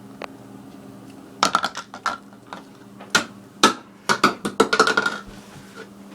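Dishes and utensils clinking and knocking: a quick run of sharp clinks, some ringing briefly, starting about a second and a half in and stopping about five seconds in, over a steady low hum.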